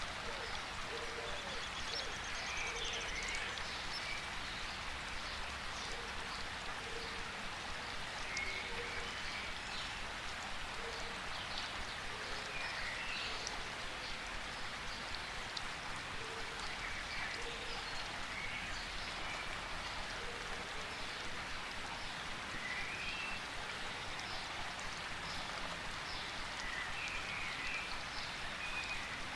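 Steady rain falling, with short chirping calls of forest animals scattered throughout.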